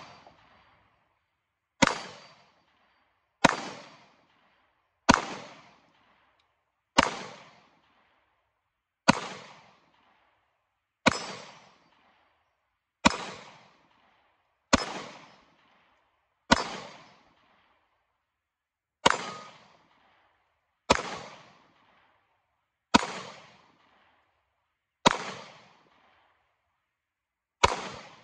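Springfield XD-M compact 9mm pistol fired at a slow, steady pace: fourteen single shots, about one every two seconds, each followed by a short echo.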